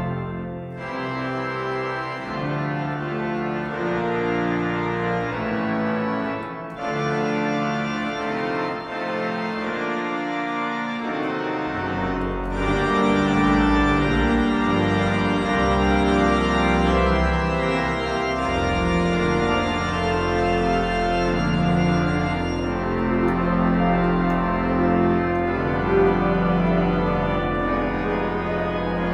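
Digital organ sounding sampled cathedral pipe-organ stops (Hauptwerk), playing sustained chords of a hymn arrangement. Deep pedal bass comes in about twelve seconds in and the sound grows fuller and louder.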